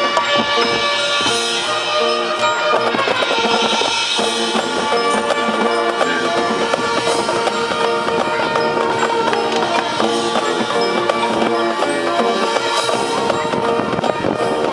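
High school marching band playing: brass and winds holding sustained notes over a busy drumline.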